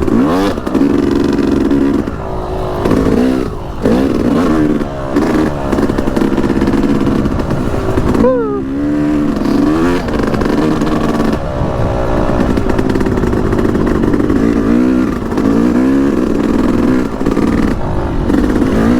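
Yamaha YZ250X's single-cylinder two-stroke engine revving up and falling back over and over as the throttle is worked while riding, with a deep drop off the throttle about eight seconds in.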